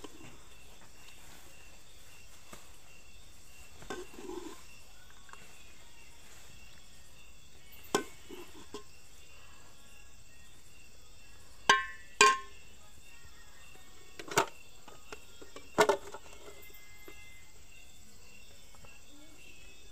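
A metal ladle clinking against a metal cooking pot while stew is served: several sharp knocks, the loudest pair about twelve seconds in ringing briefly. Insects chirp steadily in the background.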